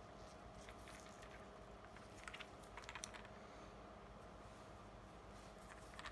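Faint small clicks and taps from handling a ratcheting screwdriver and its plastic parts, a little cluster about two to three seconds in and one more near the end, over near-quiet room tone.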